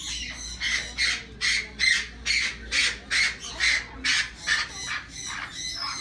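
A pet parrot squawking over and over, loud harsh calls at about two a second.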